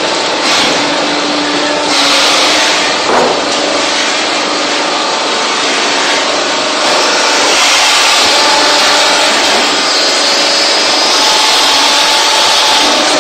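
Hydraulic block-making press running: a loud, steady mechanical hiss and hum from the machine and its hydraulic pump, with faint steady tones beneath. It swells louder about two seconds in and again through the second half.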